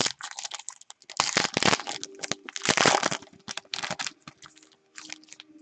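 A trading-card pack wrapper being torn open and crinkled: irregular crackling rustles, loudest about a second in and again near three seconds.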